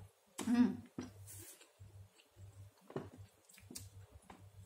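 A person eating a napa cabbage pancake close to the microphone: a short voiced sound about half a second in, then soft wet chewing with small mouth clicks.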